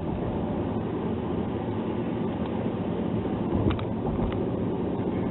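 Car being driven: a steady low engine and road rumble, with a couple of faint clicks near the middle.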